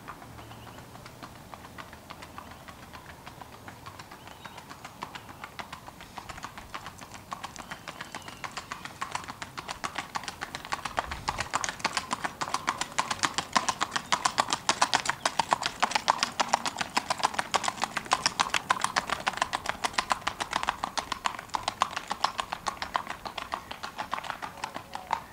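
Quick, even hoofbeats of a gaited horse (Tennessee walking horse type) on asphalt, moving at a fast street gait. The clatter grows louder as the horse nears, is loudest in the middle, then eases slightly as it moves off.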